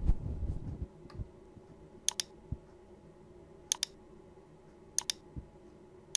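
Computer mouse's left button clicked four times, about every one and a half seconds. Each click is a quick pair of snaps, press then release.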